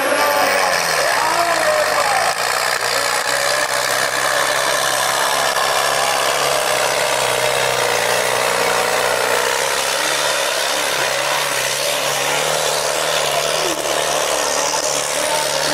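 Modified John Deere 5310 tractor's four-cylinder diesel engine running steadily under heavy load as it drags a weighted sled through soil.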